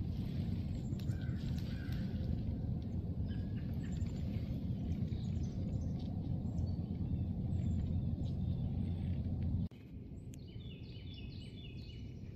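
Outdoor woodland ambience: a steady low rumble with scattered high bird chirps. The rumble cuts off abruptly near the end, leaving quieter woods with a bird's quick run of repeated chirps.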